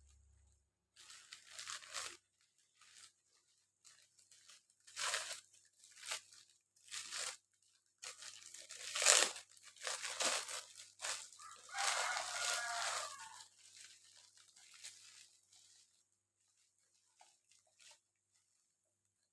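Irregular crinkling and tearing handling noises, as of plastic or packaging being worked by hand, with a short squeak about twelve seconds in; it goes almost quiet for the last few seconds.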